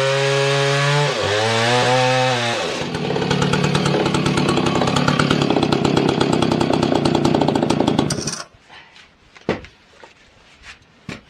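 Husqvarna 2100 chainsaw running at high revs; about a second in its pitch dips and recovers. From about three seconds in it cuts through wood with a rough, rapid rattle for about five seconds, then cuts off suddenly, leaving a few faint knocks.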